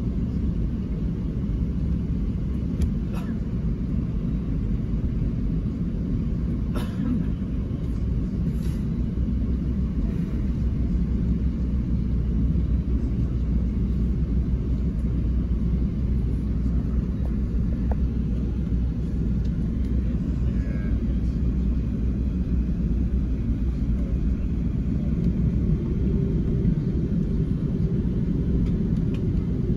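Steady low rumble inside the cabin of a British Airways Airbus A380 taxiing, from its Rolls-Royce Trent 900 engines and the airframe rolling over the taxiway. A steady hum joins near the end.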